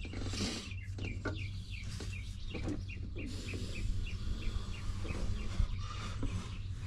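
A bird chirping: a steady series of short, evenly spaced chirps, about three a second, for several seconds, with a few faint knocks alongside.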